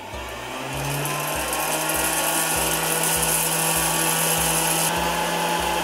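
Ariete hot-air popcorn maker running: its fan motor spins up in the first second, then runs with a steady hum and the rush of hot air blowing over the kernels before they start to pop. The airy hiss eases a little near the end.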